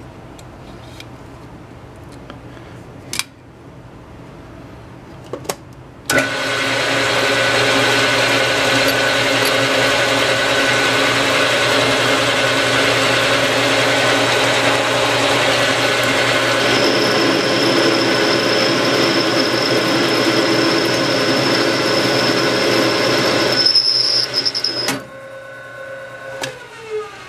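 Small metal lathe that starts up about six seconds in and runs steadily with the tool cutting into the spinning workpiece, a thin high squeal joining partway through. Near the end the cutting tool runs into the larger-diameter face, stalling the chuck and breaking the lathe's drive belt: the running sound breaks off and its pitch falls as the motor winds down.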